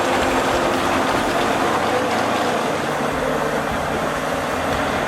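Forestry tractor's engine running steadily under load as it hauls logs through deep mud, with a dense, noisy wash over the engine tone.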